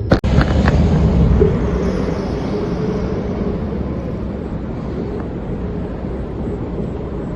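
Car on the move: steady engine and road-noise rumble with a faint steady hum.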